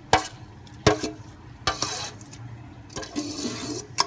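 Steel spoon clinking and scraping against a steel bowl as grated carrots are pushed out into a pot of milk: a few sharp clinks, with a longer scrape of carrots sliding out a little after three seconds in.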